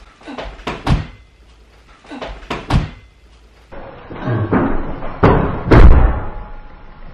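Two sharp thumps about two seconds apart from a person dancing, then a louder rustling thud as the person drops down onto a bed.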